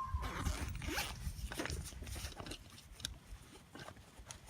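Handling noises of small gear being taken out of a pack: irregular rustling and light knocks, with a brief squeak right at the start and a low rumbling in the first second or so.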